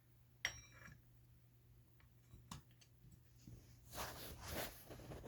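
Faint handling of metal washer clutch parts: a single sharp metallic clink with a brief ring about half a second in, then a scraping rustle around four seconds in, over a low steady hum.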